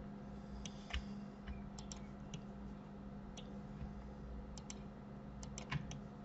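Faint, scattered clicks of a computer mouse and keyboard, about a dozen, with a quick run of several near the end, over a steady low electrical hum.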